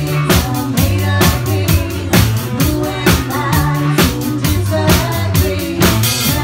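Live band playing a dance-pop cover: a drum kit keeps a steady beat under a moving bass line.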